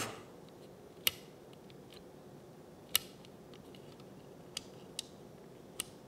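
Small plastic slide switch on a digital thermostat's housing being pushed between its positions, clicking into place: two sharp clicks about two seconds apart, then three lighter ticks near the end.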